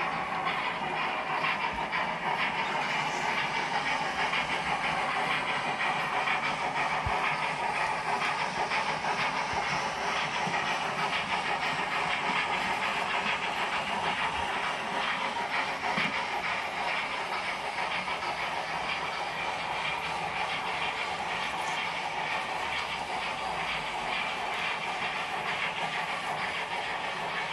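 H0-scale model BR 44 steam locomotives running under sound, their decoders giving a steady steam chuffing and hiss, mixed with the rolling rattle of model freight wagons on the track.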